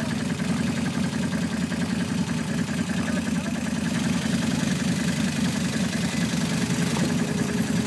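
ATV engine idling steadily with an even low pulse.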